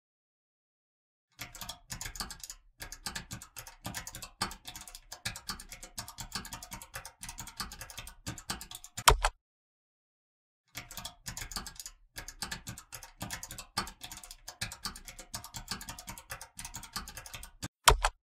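Typing on a computer keyboard: two runs of rapid keystrokes, each ending with one much louder key strike.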